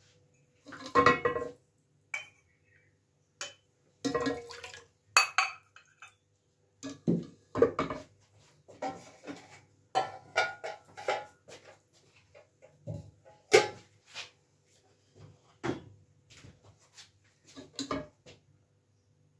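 Steel ladle stirring milk in a stainless steel saucepan, clinking and scraping against the pan in irregular bursts.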